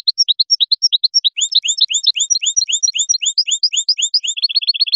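European goldfinch singing: a fast run of repeated high, chirping notes, about six a second, that quickens into a rapid trill near the end.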